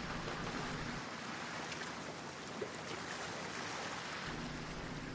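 Ocean surf washing onto a beach: a steady rush of waves.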